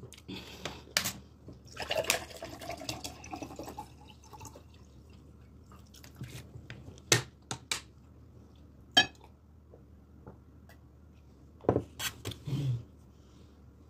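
Scattered wet mouth clicks and lip smacks, close to the microphone, with a short spell of wet mouth noise about two seconds in.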